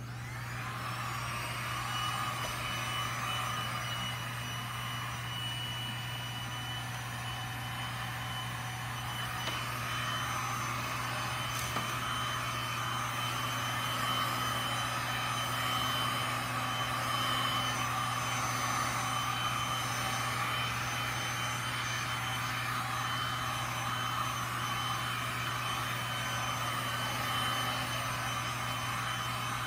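Heat gun blowing hot air over wet resin to keep it moving. It makes a steady rush of air with a fan whine, switched on at the start and off at the very end.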